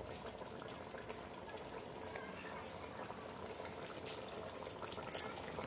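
Potato curry gravy simmering in a kadhai on a lit gas stove, a quiet, steady bubbling hiss, with a couple of faint clicks near the end.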